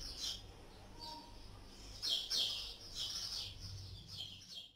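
A small bird chirping in quick, short high calls, in bursts with brief pauses between them.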